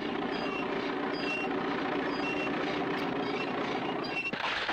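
A motor vehicle engine running steadily, with short high beeps repeating about once a second and a louder burst of noise near the end.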